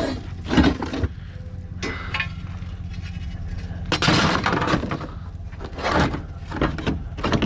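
Scrap metal being handled: a string of clanks, clinks and rattles, with a longer clatter about four seconds in, over a steady low hum.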